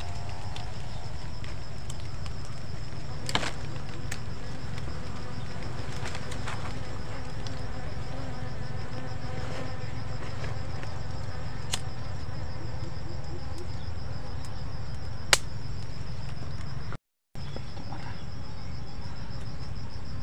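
Bees buzzing steadily around their exposed comb on a branch, over a steady, pulsing high-pitched insect trill. A few sharp clicks or snaps of twigs being handled come through.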